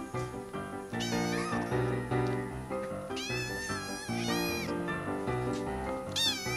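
A young tabby kitten meowing four times, each a high cry that rises and falls, over background music with steady held notes.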